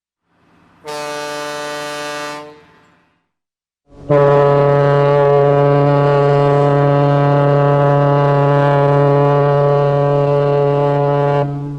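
Ship's horn sounding two blasts: a short blast of about a second and a half near the start, then after a pause a long, loud, steady blast of about seven seconds that cuts off near the end.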